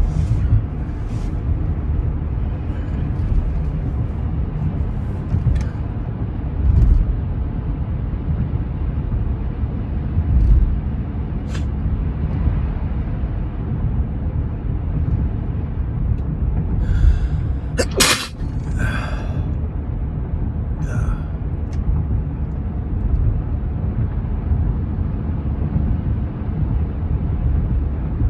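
A person's sneeze about two-thirds of the way in, with short breaths around it, in a bout of sneezing induced by tickling the nose. A steady low rumble runs underneath.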